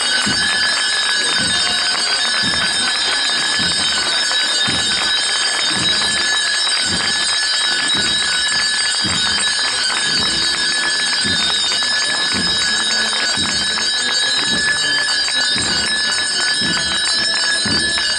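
Continuous bell-like metallic tinkling and jingling from the silver fittings and candelabra of a processional throne as it sways while being carried, with soft low thuds at a steady pace of about two a second.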